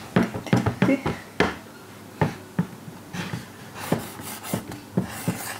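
Marker pens writing on small handheld boards: short scratches and squeaks, mixed with light knocks and taps as the boards are handled.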